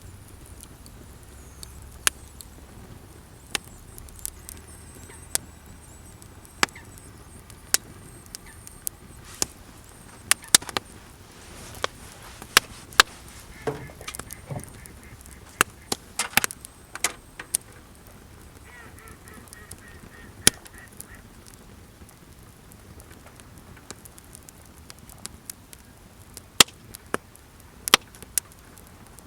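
Wood campfire crackling, with frequent sharp pops and snaps of the burning wood. A couple of brief waterfowl calls come in around the middle.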